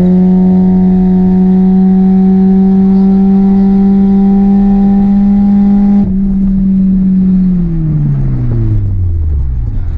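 Honda Civic four-cylinder engine with a rod knock, held at high revs under full throttle with its pitch creeping slowly up, as it is being run hard to make it blow. About six seconds in the throttle lifts and the sound drops, and in the last couple of seconds the revs wind steadily down.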